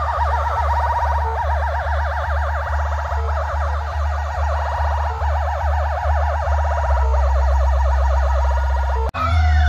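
DJ sound system playing an electronic siren-effect track: a fast, warbling, alarm-like tone over a deep bass that pulses at a steady beat. The bass turns to a steady drone about seven seconds in. Near the end the sound cuts out for an instant, then long siren-like glides sweep up and down.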